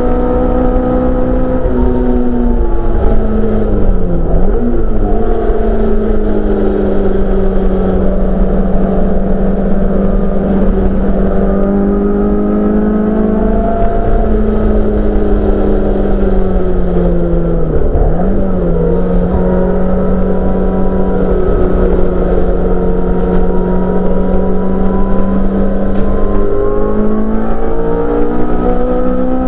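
Honda F20C 2.0-litre inline-four engine, swapped into a Mk2 Ford Escort race car, heard from inside the cabin running hard at high revs. The note dips sharply and recovers about four seconds in and again midway, and climbs near the end as the car accelerates.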